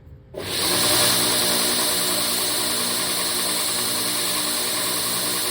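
Electric grinder switched on, coming up to speed within the first second and then running steadily, used to grind and round the tang area of a slipjoint knife blade.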